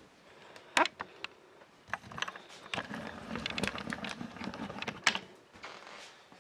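Sharp clicks and small plastic rattles from the RC crawler's parts being handled, with one loud click about a second in and another near the end.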